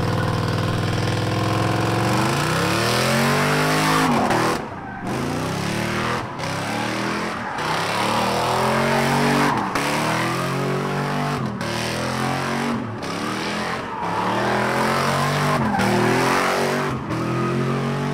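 Car engine revving hard as it spins donuts, its pitch climbing in repeated sweeps that drop off sharply every second or two, over the steady screech of spinning tyres.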